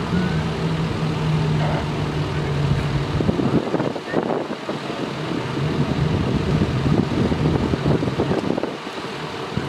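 Ford ambulance's engine idling with a steady low hum, which drops away for a couple of seconds in the middle, under a constant rushing background noise.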